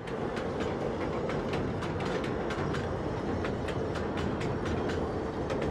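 Freight train rolling by: a steady rumble with the clickety-clack of wheels over rail joints, about three clicks a second.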